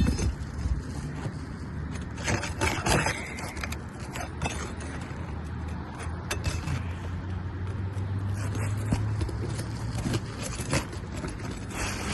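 Scraping and clicking of an old asphalt shingle and hand tools as the shingle is worked loose and slid out from under the course above, with a sharp knock at the start. A low steady engine hum from a vehicle sits underneath through the middle.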